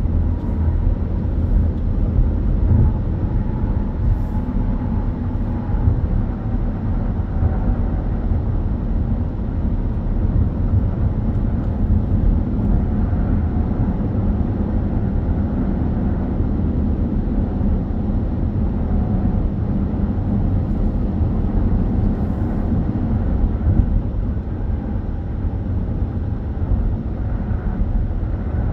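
Steady road noise of a car cruising at highway speed, heard from inside the cabin: a constant low tyre and engine rumble.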